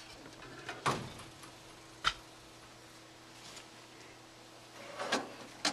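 Faint steady hum with a few scattered sharp clicks and knocks: one about a second in, one about two seconds in, and a couple near the end.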